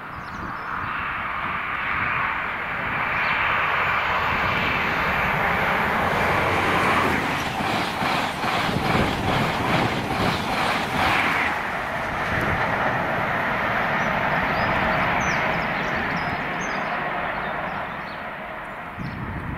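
High Speed Train (InterCity 125) with Class 43 diesel power cars passing through at speed. It swells from a rising engine-and-rail rush to a loud pass, with a run of rhythmic wheel clicks over the track as the coaches go by, about two a second. It then runs on steadily and fades as the train draws away.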